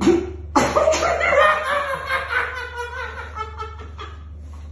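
A man laughing in a hysterical fit he cannot hold back, set off by a chiropractic adjustment of his hip and back. After a short sound at the start, the laughter breaks out about half a second in and fades away near the end.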